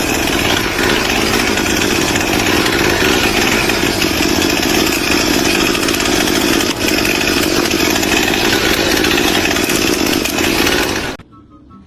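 A motorised power tool running steadily at high speed, cutting off abruptly near the end.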